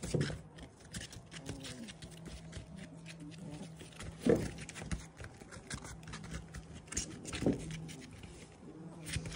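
Four-week-old puppies' paws pattering and scratching on a plastic tarp, with three short, louder yips spaced about three seconds apart.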